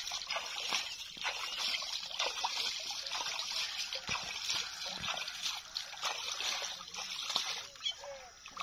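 Water trickling and splashing unevenly around a pointer dog that is being cooled off in water.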